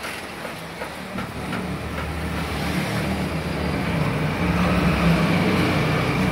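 Several industrial sewing machines running at once, a steady motor hum with the whir of sewing, growing louder about halfway through.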